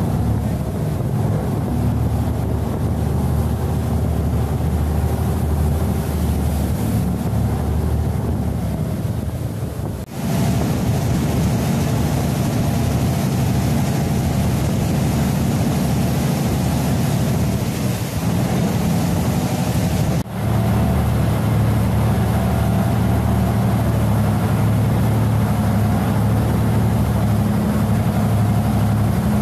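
Canal express boat's diesel engine running steadily under way, a loud low drone, with rushing water from the wake and wind on the microphone. The sound drops out briefly twice.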